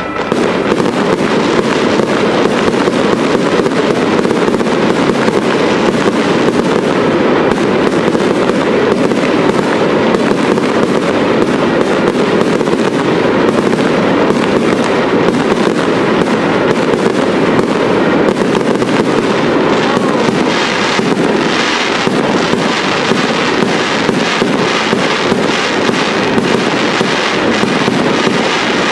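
Fireworks display: a continuous barrage of aerial shell bursts and dense crackling, with no pauses between the bangs.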